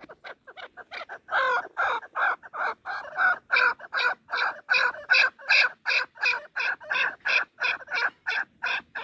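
Chukar partridge calling: a long, rhythmic run of short, repeated notes, about three a second, growing louder after the first second or so.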